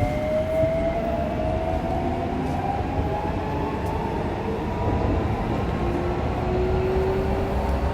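Keikyu New 1000 series (1890 subseries) motor car's Toyo hybrid SiC VVVF inverter and traction motors whining in several slowly rising tones as the train picks up speed, over the steady rumble of the running gear on the rails.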